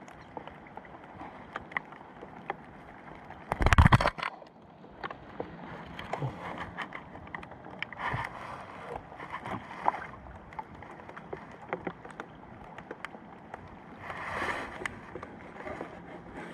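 Sounds aboard a small fishing boat on the water: many scattered light ticks and knocks over a steady wash of noise. About four seconds in there is one loud, deep thump or buffet.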